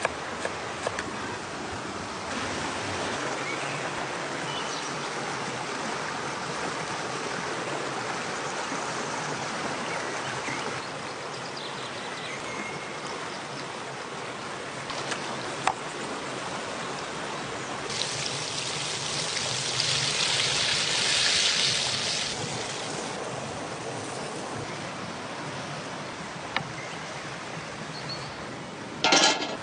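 Stream water flowing steadily, swelling louder for a few seconds about two-thirds of the way through. A few sharp clicks and a brief loud clatter come near the end.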